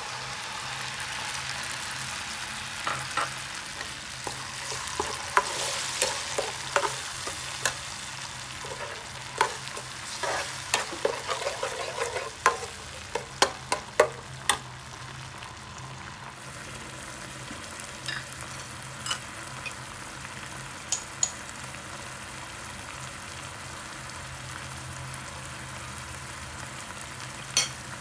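Fermented soybeans (sieng) and their liquid sizzling in hot oil and garlic in a frying pan, stirred with a metal spatula that clicks and scrapes against the pan. The sizzle is strongest in the first half and eases after about 16 s. The spatula clicks come thick and fast in the first half, then only now and then.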